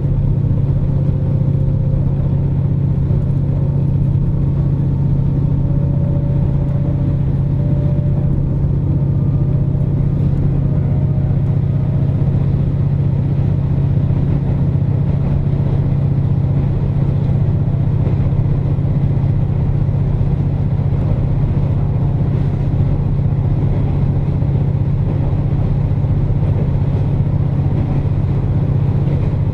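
KiHa 47 diesel railcar running on the line, heard from inside the car: a steady, loud low engine drone with running noise, and a faint whine above it that slowly rises in pitch.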